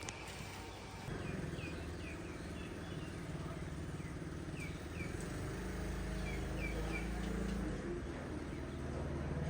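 Small birds chirping in a string of short, quick calls over a steady low hum that starts about a second in.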